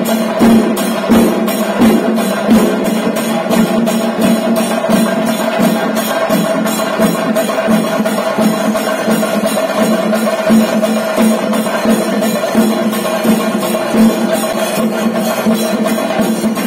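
Traditional temple percussion music: metal cymbals clashing in a fast even beat, with drum strokes and a steady held tone underneath.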